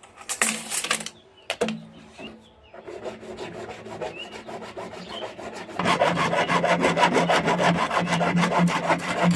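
Fast, even rasping strokes of a hand tool cutting or scraping an SWR plastic drain pipe. They start about three seconds in and get louder about six seconds in, after a few sharp knocks at the start.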